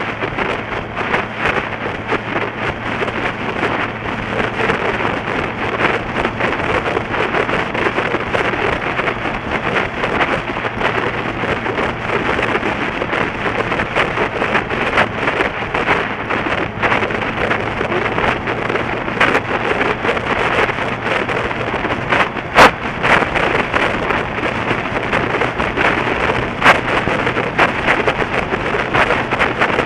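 Wind rushing and buffeting over the microphone of a motorcycle-mounted camera at road speed, over a steady low engine hum. Two sharp clicks come late on, about four seconds apart.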